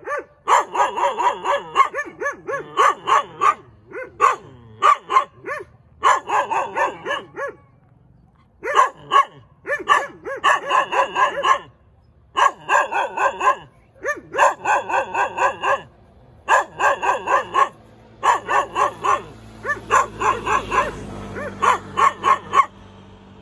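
Dog barking in quick bursts of several barks each, with short pauses between the bursts.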